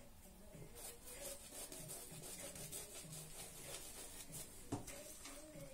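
Faint soft brushing as the bristles of a Yaqi Moka 26 mm shaving brush are worked through wet lather over the face and neck. There is one short click near the end.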